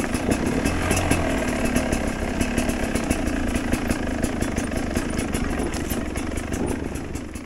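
Dirt bike engine running steadily, fading out near the end.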